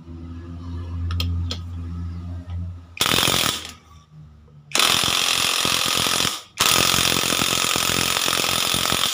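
Cordless impact wrench hammering a 19 mm nut tight on a Kawasaki Fury 125 engine, in three loud bursts: a short one about three seconds in, then two longer ones. A steady low hum comes before the first burst.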